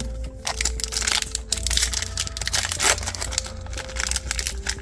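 Trading card pack wrapper being crinkled and torn open by hand, a dense run of irregular crackles and rustles.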